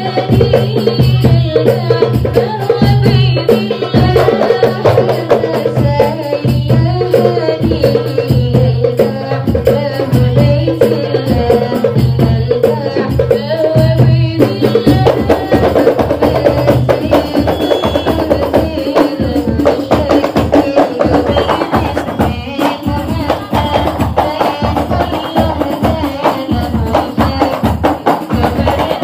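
Qasida devotional song sung by voices over rhythmic frame-drum (hadroh) percussion, several drum strokes a second. About halfway through, a low steady tone drops out and the singing changes.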